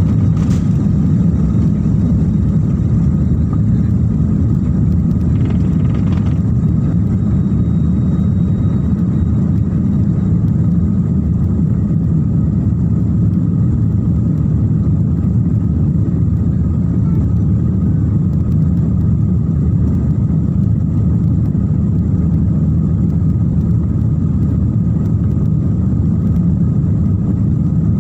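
Steady cabin noise inside a jet airliner: a loud, even low rumble of the engines and airflow, with a faint high whine above it. There is a short click right at the start.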